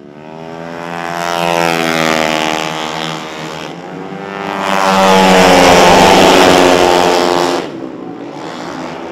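Four-stroke racing Vespa scooters passing at high revs, their engine pitch rising and falling as they go by. A second, louder close pass about five seconds in cuts off suddenly near the end.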